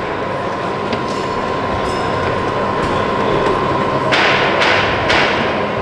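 Crowd noise in a large sports hall, a steady hubbub with a constant thin tone running under it. About four seconds in, the crowd briefly gets louder in a short burst of noise.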